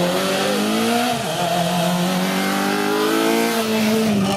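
Citroën C2 rally car's engine at high revs under hard acceleration. The pitch climbs, dips sharply at a gear change about a second in, then climbs again and drops once more near the end as the car passes close by.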